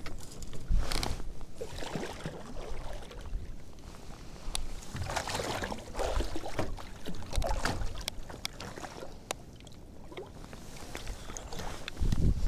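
Water splashing and lapping against the side of an aluminium boat while fishing line is hauled in by hand, with irregular swishes and a few sharp clicks. The splashing grows louder near the end as a hooked burbot is drawn up to the hull.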